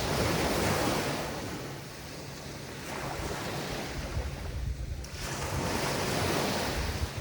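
Mediterranean waves breaking and washing up the beach, three surges in about seven seconds, with wind on the microphone.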